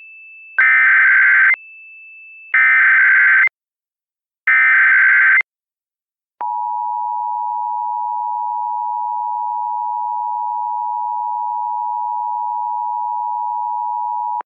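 Emergency Alert System broadcast tones: three loud screeching bursts of SAME header data, about a second each. The first two bursts are preceded by a quieter steady high tone. After a click, the steady two-tone EAS attention signal (853 and 960 Hz) sounds for about eight seconds.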